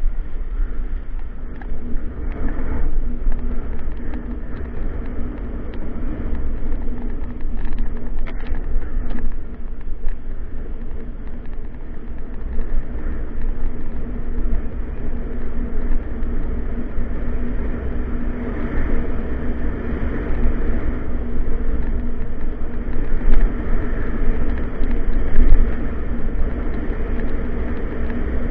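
Wind buffeting the microphone of a bike-mounted action camera while a mountain bike rolls along asphalt, with a steady hum from its knobby tyres and a few brief rattles about eight seconds in.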